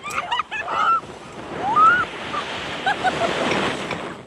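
Wind rushing over the microphone of a moving rollercoaster, swelling from about a second and a half in and dropping away near the end, with short high shrieks and cries from riders over it.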